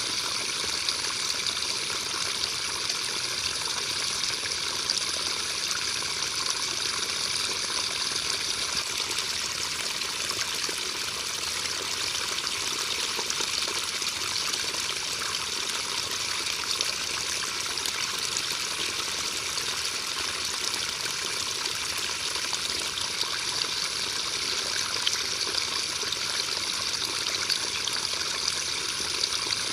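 Steady rain falling, an even hiss with small scattered drop ticks and no change in strength.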